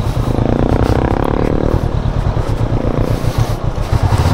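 Motorcycle engine running as the bike is ridden, a loud, uneven low rumble with a stronger engine note for the first second or two.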